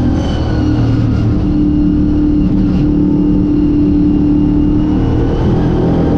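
Late model stock car's V8 engine running hard at race speed, heard from inside the car. The steady high engine note wavers and drops slightly near the end.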